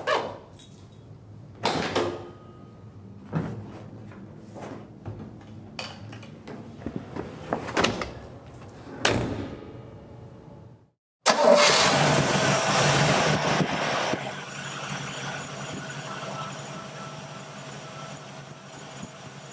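A series of sharp clicks and knocks for about ten seconds. After a brief silence, the Corvette's 300-horsepower Chevrolet 327 small-block V8 starts with a loud burst about halfway through and settles into a steady idle.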